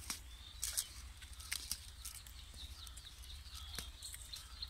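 A cow cropping grass and weeds: a few scattered crisp tearing snips, with small birds chirping in the background.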